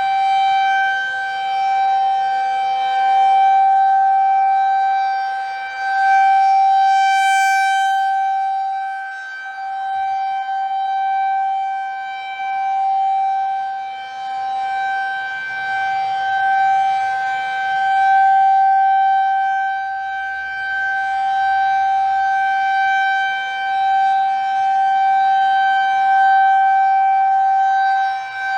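Federal Signal 2001 rotating tornado siren sounding a steady single tone during a test. The pitch holds level while the loudness swells and fades every few seconds as the rotating head sweeps past.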